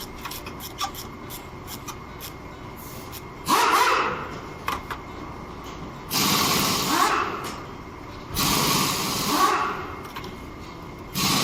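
Four sudden hissing bursts of spray, each a second or two long and a few seconds apart, over a steady low background.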